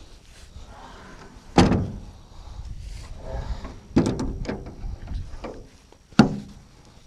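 The steel drop-side gate of a 1990 Suzuki Carry mini truck's bed being swung shut and latched by hand: three sharp metal clanks, one about a second and a half in, one at about four seconds followed by a few rattling clicks of the latch, and one near the end.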